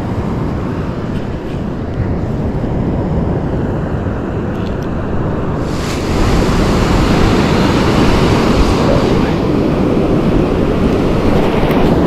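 Ocean surf breaking and washing on a beach, with wind buffeting the microphone. About halfway through a wave comes in and the rush grows louder and brighter.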